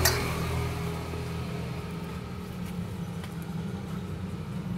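Steady low hum of an idling engine, with one sharp click at the very start.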